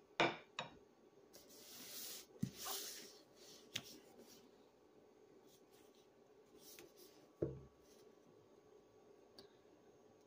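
Handling noise from a hardcover book and small objects on a tabletop: two sharp knocks near the start, rubbing and rustling as the book is picked up and turned over, and a dull thump about seven and a half seconds in.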